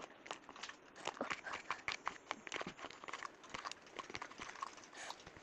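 Clay and water being mixed in a bowl: quick, irregular clicks and taps that keep up throughout.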